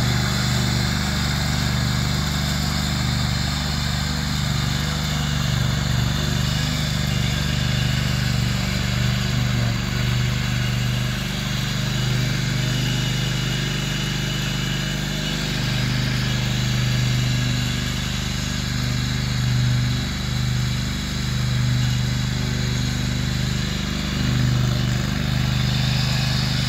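Husqvarna riding lawn tractor's engine running steadily under load as its mower deck cuts tall dry grass.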